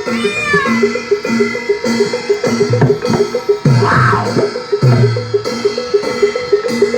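Javanese barongan gamelan music: a fast, even run of small gong or metallophone notes, about four a second, with deep drum strokes whose pitch slides. A short falling melodic line sounds near the start.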